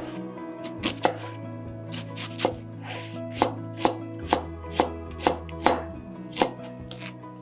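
Chef's knife chopping a red onion on a cutting board: a series of sharp knife strikes on the board, about two a second and unevenly spaced.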